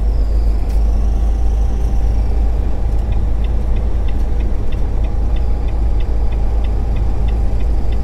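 Inside a semi truck's cab at road speed: the engine and road noise make a steady low rumble. About three seconds in, a turn signal starts ticking, about three ticks a second.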